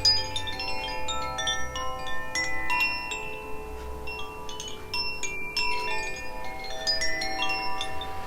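Two Koshi chimes, Aria and Ignis, rung together: the clapper strikes their tuned metal rods at random. The result is a constant tinkling of many overlapping tones, each ringing on for a second or so.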